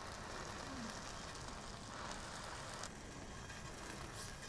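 Faint, steady sizzle from a flat-top griddle as burger buns toast face-down on the hot steel, easing slightly about three seconds in.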